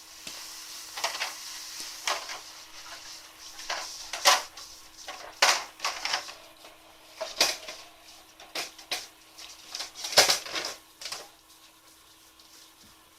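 Metal parts of a box-type wood stove being handled, with irregular knocks and clanks, a dozen or so, spread unevenly over several seconds, over a faint steady hum.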